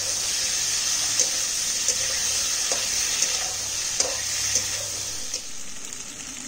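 Potatoes, drumstick pieces, tomato and green chillies frying in hot oil in a pan: a steady hissing sizzle with a few short clicks, easing a little near the end.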